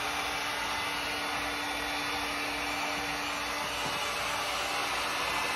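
Handheld electric heat gun blowing steadily: an even rushing hiss with a faint steady hum that drops away about two-thirds of the way through.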